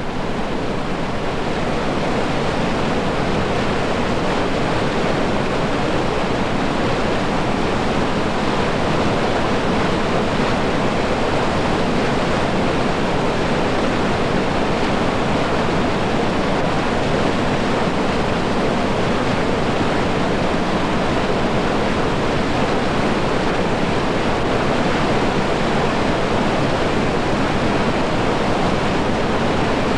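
Whitewater river rapids rushing over rocks: a steady, loud, dense noise of churning water.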